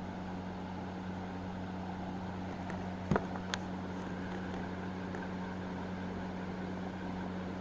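Steady low hum with a hiss from a gas stove burner heating an iron tawa with a rice-flour roti on it. A light knock comes about three seconds in.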